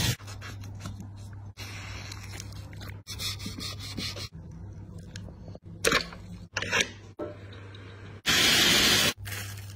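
A knife scraping and cutting through raw pork skin and fat in short clips, over a steady low hum, with a few sharp cracks and a brief burst of loud hiss near the end.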